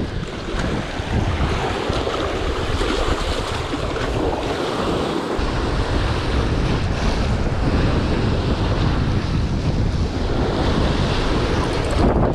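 Wind buffeting the microphone: a steady rushing noise with heavy low rumble, easing briefly about four seconds in and stronger after.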